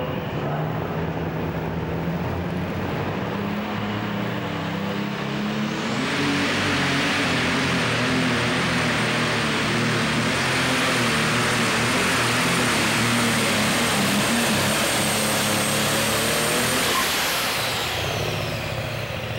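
Alcohol light super stock pulling tractor's methanol engine revving at the line, then about six seconds in going to full throttle under load, loud, with a high steady turbo whistle over it. Near the end the throttle comes off and the whistle winds down.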